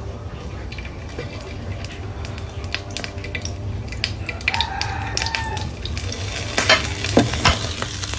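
Sausages sizzling and crackling in a frying pan, with the scrape of stirring. A rooster crows once, a held call of about a second, just past the middle, and a few sharp clatters of cookware come near the end.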